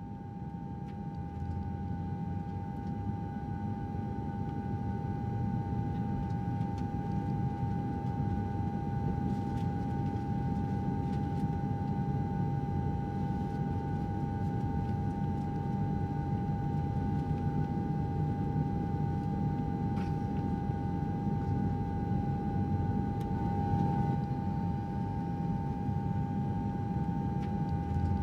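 Steady aircraft-type engine drone: a low rumble under a constant high whine, swelling over the first few seconds and then holding level.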